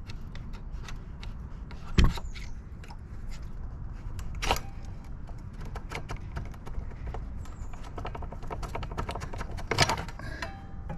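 Metal clicks, scraping and clatter as the Honda CBR650R's front axle is worked out of the fork and wheel hub with a screwdriver pushed through it. There is a sharp knock about two seconds in, another a couple of seconds later, and a burst of clatter near the end, over a steady low hum.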